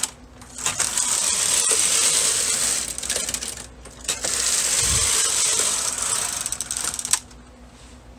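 Brother KH-260 bulky knitting machine carriage pushed across the needle bed twice, knitting Fairisle rows: a clattering mechanical rattle about three seconds long each time, with a short pause between passes and quiet after the second.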